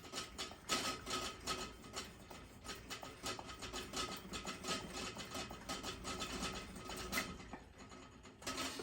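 Plunger pump on a 1982 Coleman lantern being worked in quick, regular strokes to pressurise the fuel tank. The strokes stop about seven seconds in.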